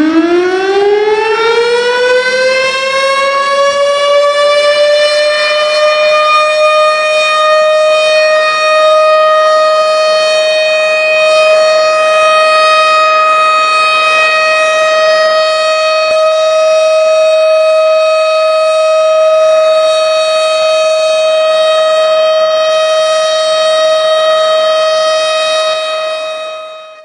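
Imsak siren, the signal that the pre-dawn fast of Ramadan begins: one long siren tone that finishes winding up in pitch over the first two seconds, then holds a steady, harmonic-rich note and fades out quickly at the end.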